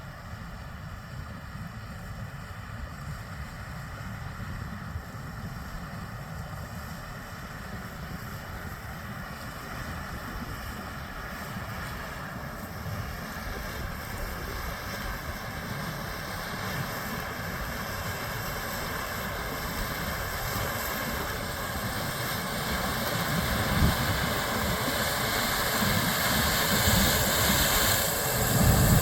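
Heavy harvest machinery running steadily: a low engine rumble with a high, steady whine above it, growing gradually louder and loudest over the last few seconds.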